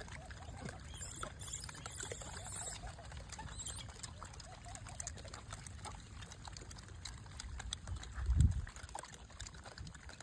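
Gray langurs feeding close by: small clicks and rustles of food being handled and chewed, over a steady low rumble, with one dull thump about eight seconds in.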